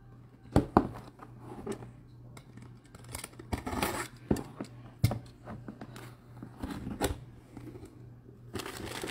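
Cardboard jersey box being handled and opened: scattered clicks, taps and scrapes of cardboard, then a denser rustle of the plastic jersey wrapper near the end.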